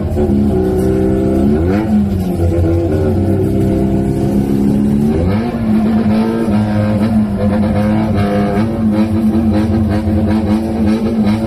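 Gang motorcycles' engines revving loudly, the pitch climbing about a second and a half in and again about five seconds in, then held high.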